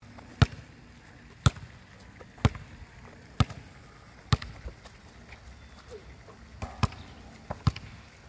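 Basketball bouncing on an asphalt court: about one bounce a second for the first few seconds, then after a short pause a few more bounces in quick pairs.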